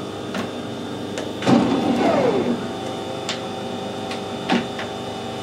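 Metal lathe being shifted to a slower spindle speed: several clunks and knocks from the headstock speed-change levers, and a loud knock about a second and a half in with a tone falling in pitch. After that the lathe's drive settles into a steady hum.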